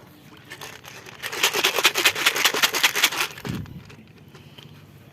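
Rapid crinkling, scraping crackle for about two seconds, then a single low thump.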